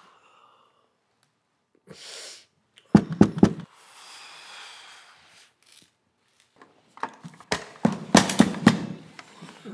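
A fist pounding on a door: a quick burst of about five knocks, then a longer, louder run of hard knocks a few seconds later.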